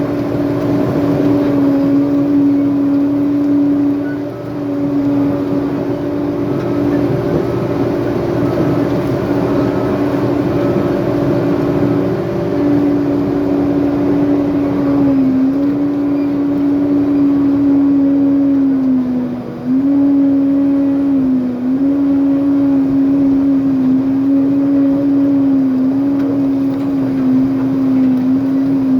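Heavy earthmoving machine's diesel engine running hard and steady, its pitch dipping briefly a few times about halfway through and again around two-thirds in, as if pulling down under load.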